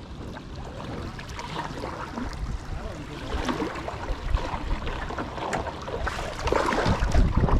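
Creek water running, a steady rushing that grows louder, with low wind rumble on the microphone near the end.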